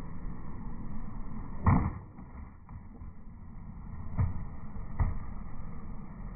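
Skateboard wheels rolling on concrete, with a loud clack of the board landing a little under two seconds in. Two lighter clacks follow, less than a second apart.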